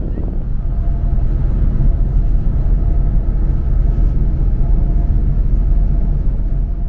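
Steady low rumble of a bus travelling at motorway speed, engine and road noise heard from inside the cabin, with a faint steady hum above it.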